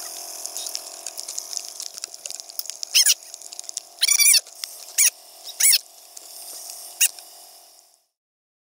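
ATV engine idling steadily under a wet hiss, with five short, high squeals that rise and fall, about a second apart, starting about three seconds in. The sound cuts off abruptly near the end.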